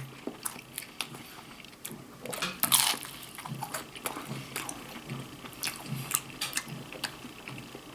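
A person chewing a mouthful of pork quesadilla: scattered small wet clicks and smacks, with one brief louder noise about three seconds in.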